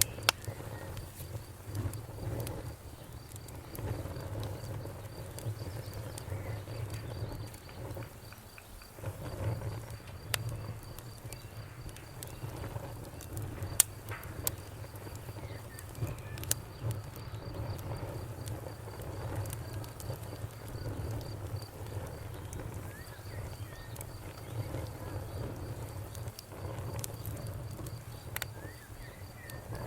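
Campfire crackling with scattered sharp pops, one louder pop about midway, over a low steady rumble. A cricket chirps in a fast, even trill that stops for several seconds in the middle.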